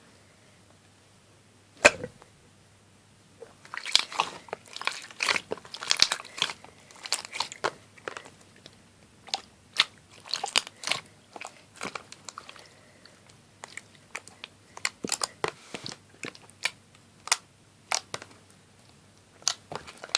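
Slime being worked by hand, its trapped air bubbles popping in a run of sharp little pops and crackles: one loud pop about two seconds in, then a dense stretch, thinning out toward the end.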